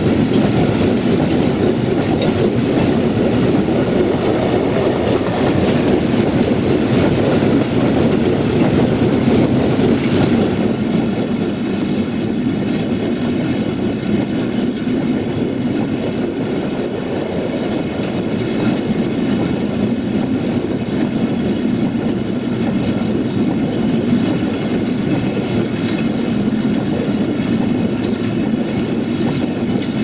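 Freight train of cement hopper wagons rolling past close by: a steady, loud rumble of steel wheels on the rails.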